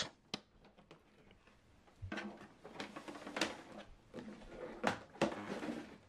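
A small click as the USB plug seats in the printer's rear port, then faint handling noise: the cable and hand rubbing and knocking lightly against the plastic printer case.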